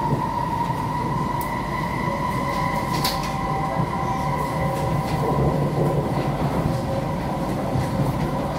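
Inside the car of an SMRT C151C metro train running at steady speed: a continuous rumble of the wheels on the track with a steady high whine over it, and a few short sharp clicks.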